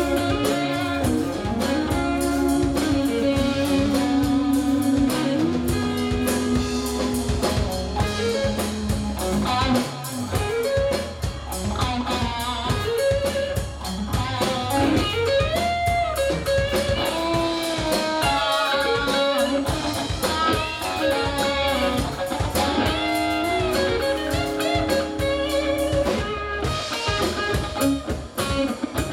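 Southern rock band playing live: electric guitars, bass guitar and drum kit in an instrumental passage, a lead guitar line with held and bending notes over the rhythm.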